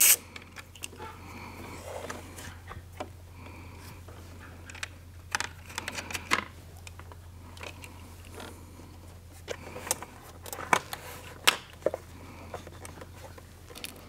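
Scattered light clicks, taps and rustles of hands working a wiring harness and zip ties in an engine bay, over a steady low hum.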